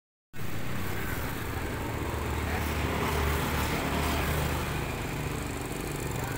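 A motor running steadily, a low hum under a noisy hiss, cutting in just after a moment of silence at the start.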